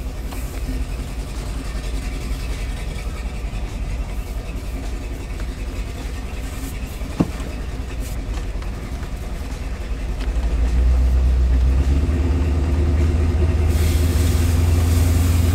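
Lifted pickup truck's engine running through headers and a home-welded exhaust, heard from inside the cab while driving slowly; it gets louder about ten seconds in as the throttle opens. One sharp click sounds midway.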